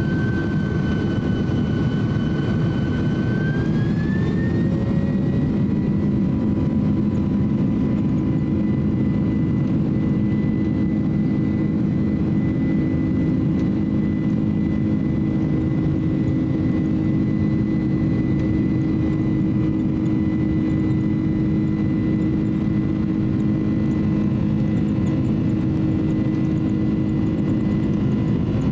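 Boeing 767-300's twin turbofan engines heard from inside the cabin. Their whine rises in pitch a few seconds in as they spool up to takeoff thrust, then holds steady over a loud, even rumble as the takeoff roll begins.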